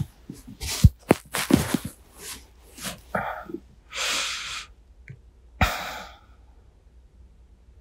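Bedding rustling and body shuffling close to a binaural microphone, a run of short rustles with soft thumps that dies away about six seconds in.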